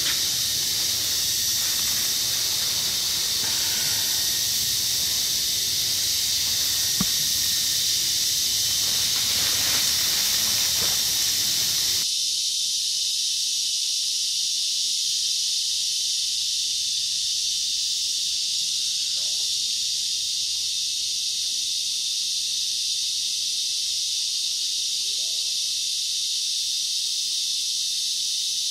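Dense rainforest insect chorus, a steady high-pitched hiss. About twelve seconds in, the lower background sounds drop away abruptly while the insect hiss carries on.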